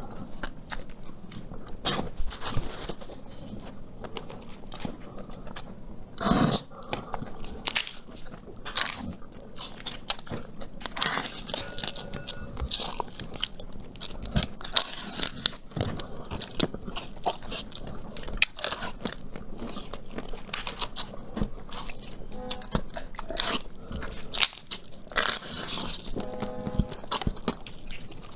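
Close-miked eating: irregular biting, crunching and chewing with wet mouth sounds, with one louder crunch about six seconds in.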